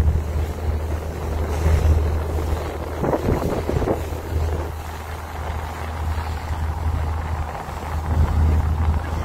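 Boat engine droning steadily and low, with wind buffeting the microphone.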